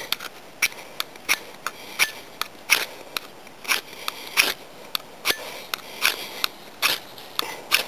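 Hand-forged carbon steel fire striker raked repeatedly down the edge of a flint, a sharp scraping strike about two or three times a second, throwing sparks to light a tinder nest.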